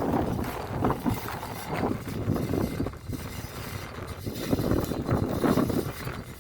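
Wind buffeting the microphone in gusts, a rough rumbling noise that swells and fades every second or so.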